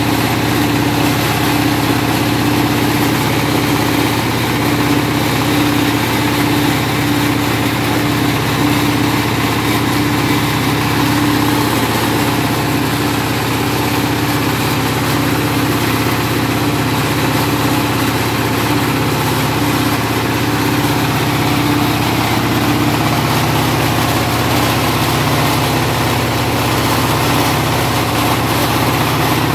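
Horizontal single-cylinder diesel engine running steadily under load, driving a rice huller-polisher mill as paddy is fed through it.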